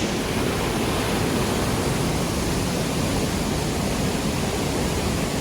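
Whatcom Falls waterfall rushing with a steady, even roar of falling water.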